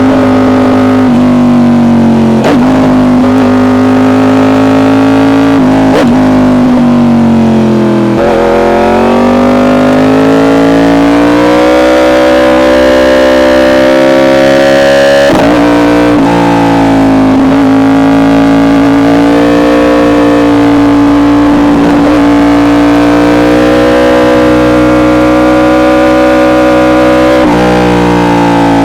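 Yamaha R1 inline-four with an SC Project exhaust, accelerating hard under load through the gears. The engine note climbs steadily and drops sharply at each quickshifter upshift, several times over.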